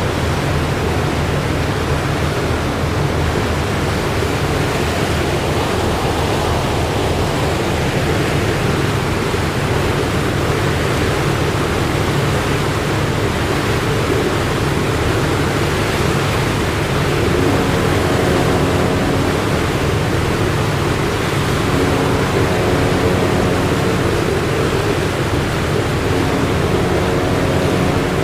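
Ship's engine drone under a steady rush of wind and water, with faint steady tones coming and going over the last ten seconds.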